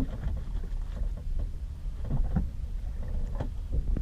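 Steady low rumble of a fishing boat's engine running, with scattered light knocks.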